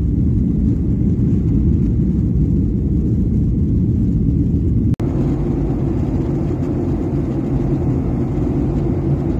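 Jet airliner cabin noise: a loud, steady low rumble of engines and airflow heard from a window seat during the climb after takeoff. After a cut about five seconds in, the same steady rumble continues in cruise.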